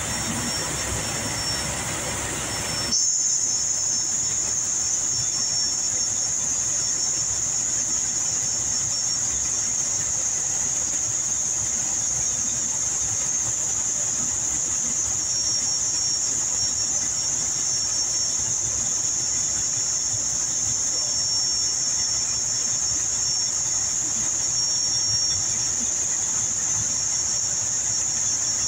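Cummins ISX diesel engine idling at about 650 rpm while its fuel rail pressure is driven up during a rail pressure test for a low common-rail-pressure fault. About three seconds in, a steady high-pitched whine comes in suddenly and holds.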